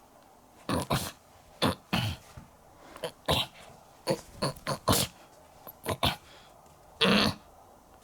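A run of about a dozen short, irregular animal-like vocal noises, each a fraction of a second long, made by a person voicing a puppet.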